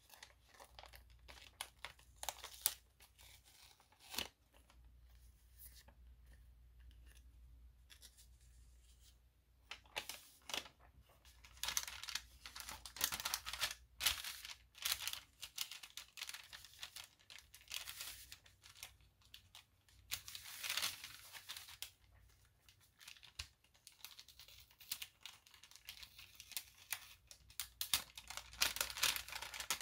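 Kraft paper packaging rustling and crinkling as it is handled and opened, with bursts of paper tearing. Light, sparse handling at first, then dense crinkling from about a third of the way in.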